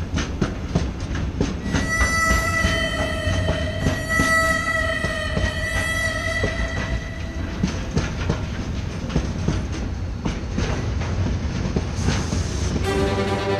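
Freight train wagons rolling past, wheels clicking steadily over the rail joints, with a steady high tone from about two seconds in to about seven seconds in. Music begins just before the end.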